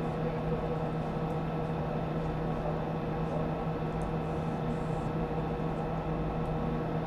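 Steady hum and hiss inside the Soyuz MS-09 crew cabin during the third-stage engine burn, an unchanging drone with a few fixed tones and no break.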